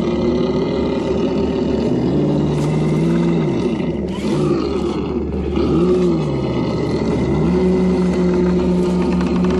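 Electric motor and drivetrain of a Traxxas TRX-4 RC crawler whining as it crawls, the pitch rising and falling with several short pushes of throttle, then holding steady near the end.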